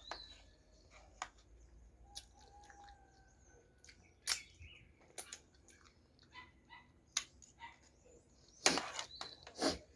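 Close-up eating sounds: chewing and wet mouth clicks, with sharper smacks about four seconds in and twice near the end.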